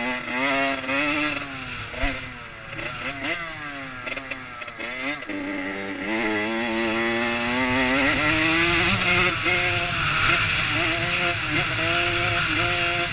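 Dirt bike engine ridden on a motocross track. For about five seconds the revs rise and fall repeatedly through the corners, then climb steadily as the bike accelerates onto the straight, and hold high with short dips as the throttle is eased.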